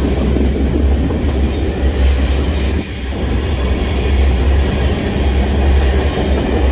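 Freight train tank cars rolling past close by: a loud, steady low rumble of steel wheels on rail, dipping briefly about three seconds in.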